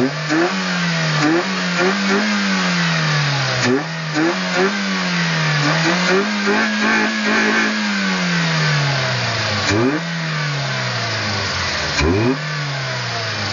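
Engine-like droning over a steady rush of air. Its pitch rises and falls again and again, every second or two, like an engine being revved.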